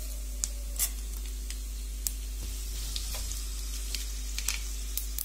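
Mustard seeds, chana dal and urad dal frying in hot oil for a tempering: a steady sizzle with scattered sharp crackles as the seeds splutter.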